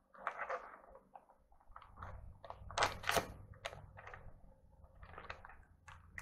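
Crinkling and rustling of a vacuum-sealed plastic tilapia fillet package being handled, a series of short crackles with a louder cluster of sharp crackles about three seconds in.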